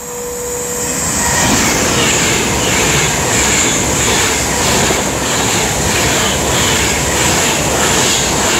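Class 390 Pendolino electric train passing through the station at speed without stopping. A rush of wheels and air swells over the first second and a half, then holds steady with a regular beat of wheels going by about twice a second.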